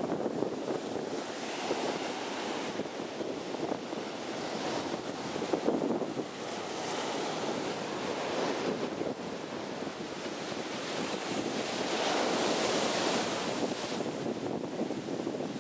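Ocean surf breaking and washing up a sandy beach: a steady rush that swells and eases with each wave, loudest about three-quarters of the way through, with wind buffeting the microphone.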